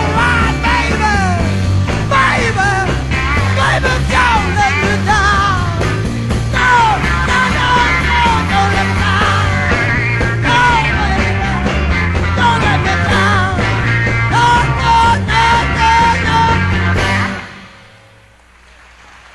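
Psychedelic rock band playing live: an instrumental passage with lead electric guitar bending and sliding in pitch over bass and drums. About 17 seconds in the band stops together, and a low noisy hiss is left.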